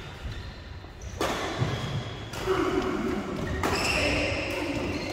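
Badminton doubles rally: rackets striking the shuttlecock and players' feet thudding on the court, with the players' voices calling out.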